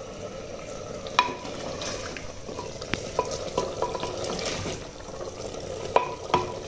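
Wooden spoon stirring a thick meat curry in a clay pot, knocking sharply against the pot's clay sides several times, over a steady sizzle of the simmering gravy.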